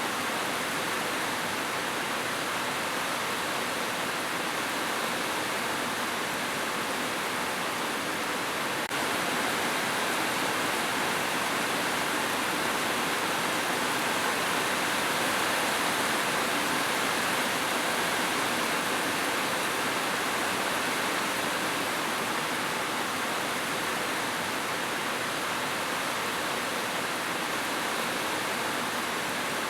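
Steady rushing water, an even hiss with no pauses, and a slight jump in level about nine seconds in.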